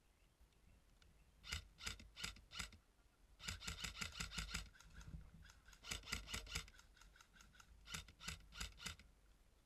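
Airsoft guns firing: sharp clicking shots in four quick strings, a few single shots, a rapid burst about three and a half seconds in lasting about a second, then more short volleys.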